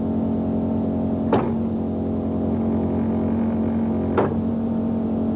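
A steady droning hum with two brief falling whistles, about three seconds apart.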